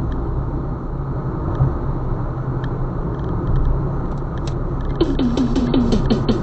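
Steady low rumble of a moving vehicle, with no music over it. About five seconds in, music starts again.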